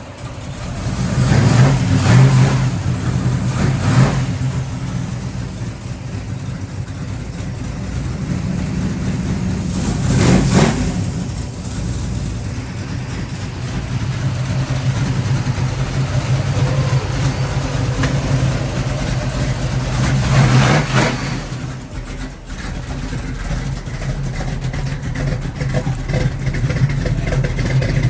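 Cammed LS-swapped V8 running with new header gaskets and spark plugs, its throttle blipped in revs about 2, 4, 10 and 21 seconds in, settling back to idle between them.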